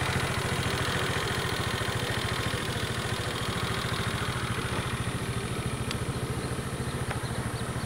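Motorcycle engine idling steadily, with an even, rapid pulse, while the rider is stopped.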